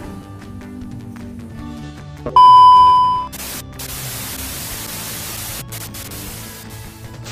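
Background music, then about two seconds in a loud, steady, high test-tone beep lasting about a second, followed by about four seconds of TV static hiss: a colour-bars test-card sound effect.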